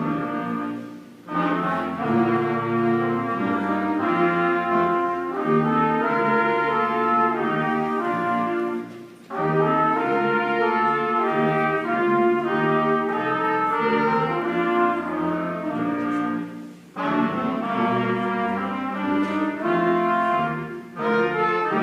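Middle-school wind band playing, brass to the fore, holding chords in phrases with short breaks between them.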